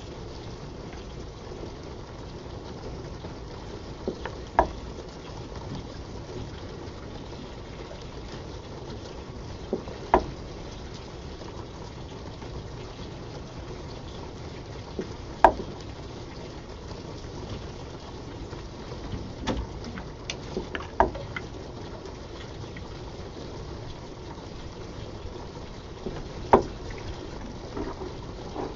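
Steady bubbling, rushing noise of steam condensing in a 2-inch acrylic pipe, with condensate-induced water hammer suppressed by 1% air. Five sharp knocks come about every five and a half seconds, with a few fainter clicks; they come from the pump's cyclic action, not from hammering.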